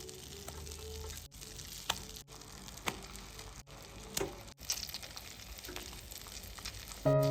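Food sizzling in a frying pan, a steady hiss with scattered small crackles and pops, broken off by several abrupt edits.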